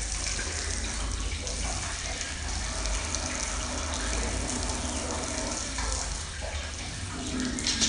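Water running from a garden hose and splashing steadily, as a home-made foley imitation of rain or drizzle.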